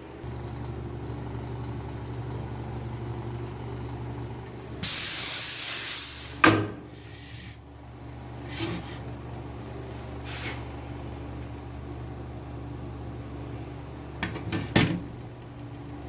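A steady low hum, with a long spray hiss of about a second and a half some five seconds in that ends in a sharp click; two short spray hisses follow, and a few clicks come near the end.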